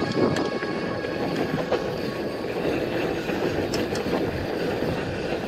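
GT Avalanche hardtail mountain bike rolling fast down a rough dirt road: steady tyre noise on packed dirt and loose stones, with scattered clicks and knocks as the bike jolts over bumps.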